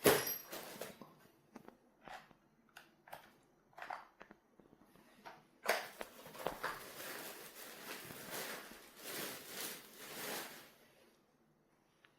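Handling noises: a sharp click at the start, a few light knocks, then several seconds of rustling and scraping that die away near the end.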